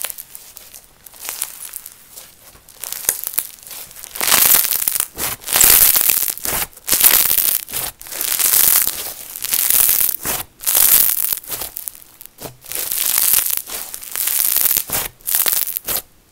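Grainy, textured slime being stretched and pulled apart by hand, giving a run of crackly bursts of many small pops, about one burst a second and loudest from about four seconds in.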